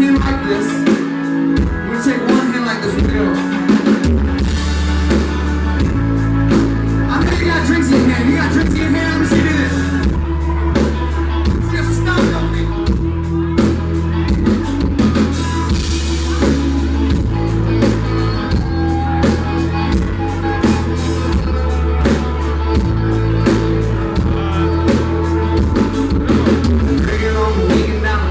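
A live country-rock band playing with drum kit and guitar on a steady beat, a heavy bass line coming in about four seconds in; the audience recording is loud and poor in quality.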